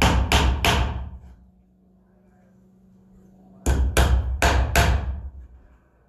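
Hammer driving a nail into a wooden board: about three blows at the start, a pause of about two seconds, then four more blows in quick succession. The nail is being set partway through the board, just short of poking out the other side.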